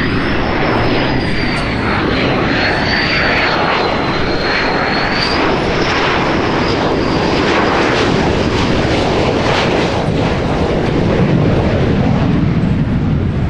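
F/A-18E Super Hornet's twin General Electric F414 turbofans at approach power as it comes in to land: a loud, steady jet noise with a high whine that wavers slightly up and down in pitch, growing a little louder near the end as the jet passes at touchdown.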